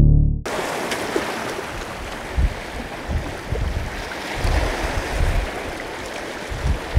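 Surf washing against the rocks of a jetty, with wind gusting on the microphone. A music track cuts off abruptly just at the start.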